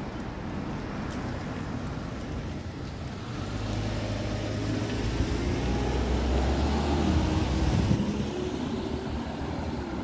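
A motor vehicle's engine drawing near and passing close by over street noise. It grows louder to a peak about eight seconds in, then fades with a slight drop in pitch.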